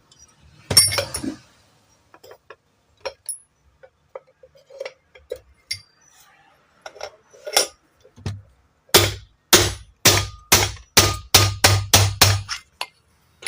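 Hammer tapping a ceiling fan's ball bearing down into its seat: a few light taps, then a run of about ten sharp metal-on-metal strikes, roughly three a second, as the bearing is driven fully home.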